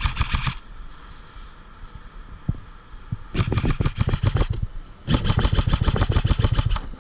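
Airsoft electric gun firing on full auto: three bursts of rapid, evenly spaced shots, a short one at the start, a longer one just past the middle and the longest, about two seconds, near the end.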